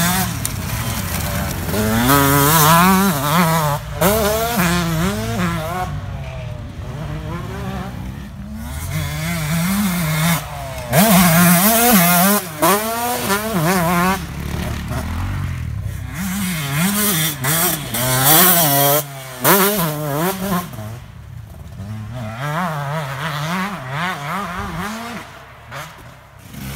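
Motocross bike engine revving hard, its pitch climbing and dropping again and again as the bike accelerates and backs off, with louder passes near the middle and towards the end.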